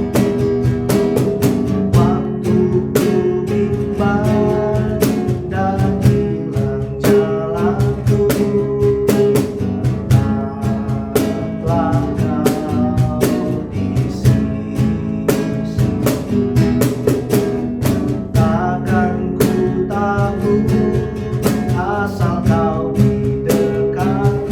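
Worship song music with strummed acoustic guitar and a melody line over a steady accompaniment.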